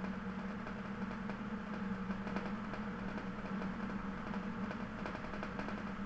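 Steady low mechanical hum, even throughout with no breaks.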